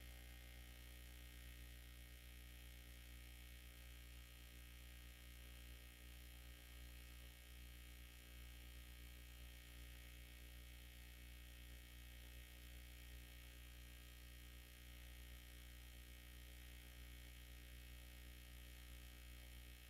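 Near silence: a faint, steady low hum of room tone.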